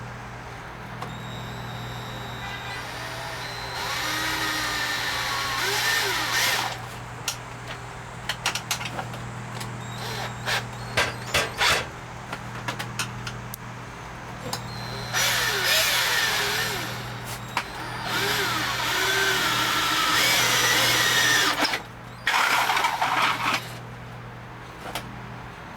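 Electric drill boring a half-inch hole in several runs of a few seconds each, its pitch gliding up and down as it bites, with sharp clicks and knocks between the runs over a steady low hum.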